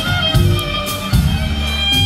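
A band playing live: fiddle and guitar over a bass line and steady drum beats, in an instrumental passage.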